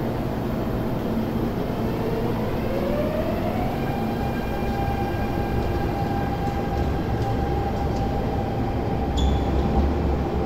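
MTR Tung Chung Line train pulling out of the platform with a steady low rumble. Its traction motors give a whine that rises in pitch as the train accelerates and then holds steady. A short high squeak comes near the end.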